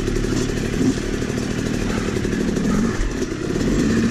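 Yamaha YZ250 two-stroke dirt bike engine running on the trail, its pitch rising and falling as the throttle is worked.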